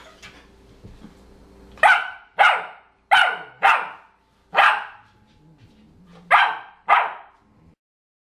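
English Springer Spaniel puppy barking: a series of short, high yaps, falling in pitch and mostly coming in pairs, that the puppy aims at an older dog as 'singing' to it.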